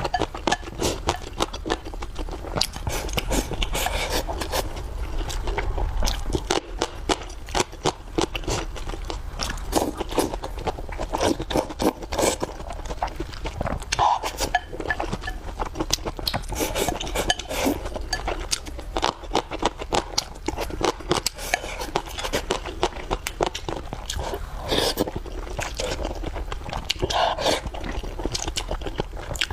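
Close-miked eating sounds: steady chewing and crunching, a dense run of quick clicks throughout.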